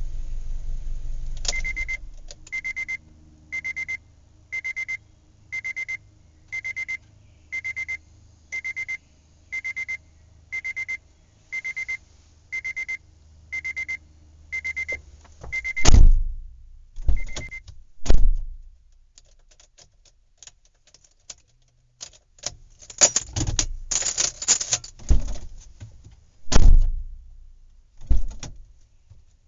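Electronic reversing-alarm-style beep, one high tone about once a second, over a faint low engine hum for most of the first half. It is followed by a few heavy thumps and a burst of clattering, rattling knocks.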